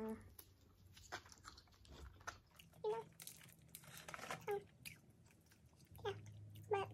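Chewing and biting into breaded fried jumbo shrimp, with scattered crunches.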